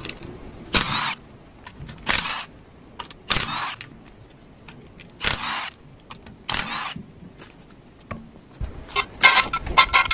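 Milwaukee cordless impact wrench with a 17 mm socket hammering loose the wheel bolts: five short bursts a second or so apart, one per bolt. Near the end there is a flurry of metallic clattering and clicks.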